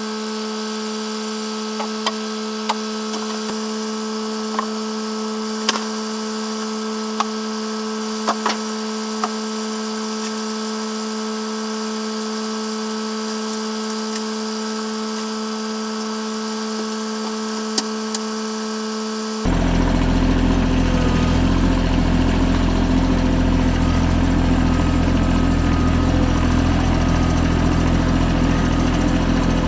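A steady, even machine hum with a few light clicks. About two-thirds of the way through it cuts abruptly to a louder, deeper engine running steadily at idle.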